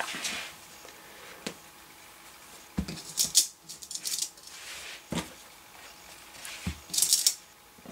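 Hands smoothing and handling quilted fabric on a cutting mat while pinning it: a few brief rustles of cloth, about 3 and 7 seconds in, and several soft knocks.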